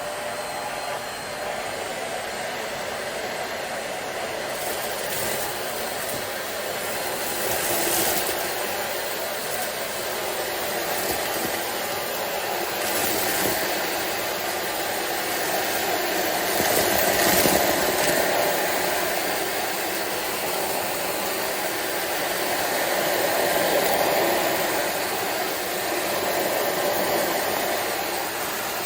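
SilverCrest SHZK 600 2-in-1 stick vacuum cleaner running: a steady motor whir and rush of air that swells and eases a few times.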